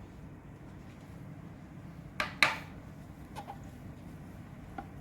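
Two sharp clicks of hard parts being handled, about a quarter second apart, then a few faint ticks, over a low steady hum.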